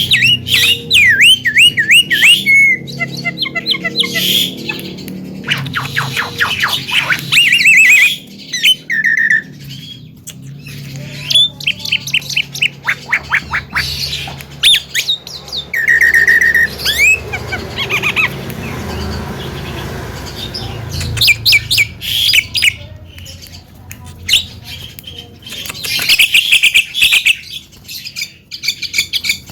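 Javan myna singing: a busy, varied run of quick rising and falling whistles, harsh squawks and rapid chattering notes.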